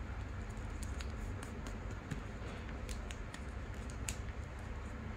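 Paper being folded and creased by hand: scattered short, crisp crackles and clicks as the sheet is pressed and smoothed, over a steady low hum.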